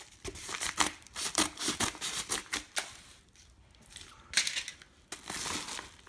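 Scissors cutting open a padded paper mailer envelope, with crinkling and rustling of the envelope paper: a quick run of snips and rustles over the first three seconds, then another burst of crinkling about four and a half seconds in.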